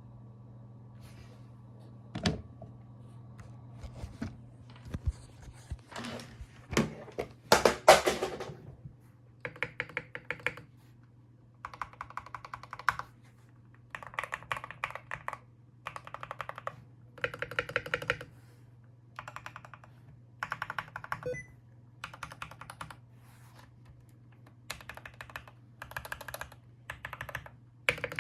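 Typing on a modded LK67 mechanical keyboard with Gateron Pro Yellow linear switches, SA-profile double-shot ABS keycaps, foam and Tempest mods, and lubed, clipped stabilisers. A few single heavy key strikes come in the first eight seconds, the loudest near the eighth second. After that the typing comes in quick bursts about a second long with short pauses between.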